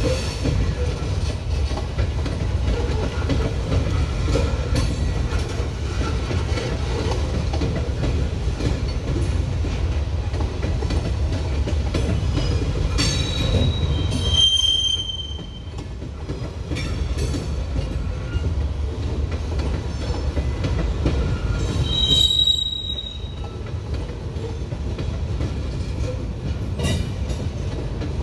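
Freight train rolling past, a steady low rumble of wheels on rail with light clicking over the joints. High-pitched wheel squeal breaks out twice, a little before halfway and again about three-quarters through.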